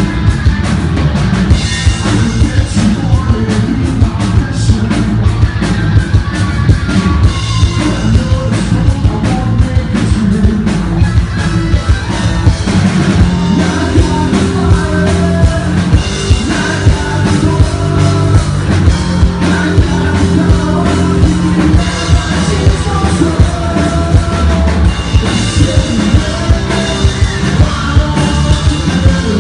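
Hard rock band playing live: a drum kit beating steadily under electric guitars and bass, with singing at times.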